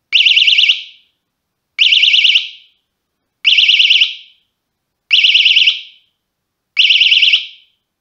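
Cheap push-button bicycle alarm in its first, warning mode, set off by a light nudge: five short, loud warbling beeps about a second and a half apart, each tailing off, before it goes quiet.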